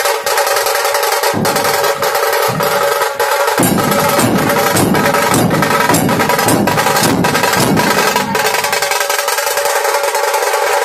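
Drums beating in a rhythm over a steady droning tone; the drumming comes in heavily about a third of the way in and drops away near the end.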